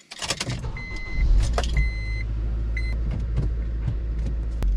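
Honda Civic Si EP3's 2.0-litre four-cylinder is cranked with the key and starts, settling into a steady idle about a second in. A high electronic chime beeps twice, about half a second each, then once briefly.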